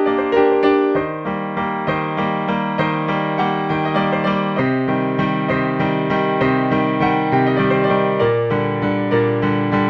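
Background music played on a keyboard with an electric-piano sound: a steady, evenly pulsed pattern of repeated chords, the bass moving to a new chord every three to four seconds.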